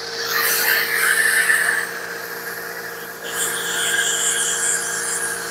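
Pressure washer motor running with a steady hum, with the hiss of a foam cannon spraying in two spells.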